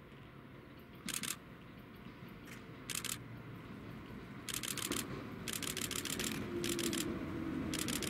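Chichibu Railway 6000 series electric train approaching, its rumble growing steadily louder with a steady hum coming in during the second half. Over it, about six short bursts of rapid clicks: camera shutters firing in continuous-shooting bursts.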